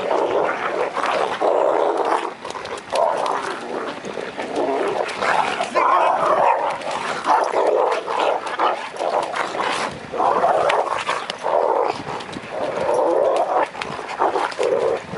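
Dogs fighting, snarling and growling without letup in rough surges, with scattered sharp clicks.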